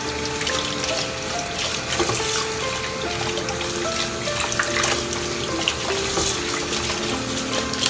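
Water running from a kitchen tap into a sink, a steady splashing rush, under background music playing a simple melody of held notes.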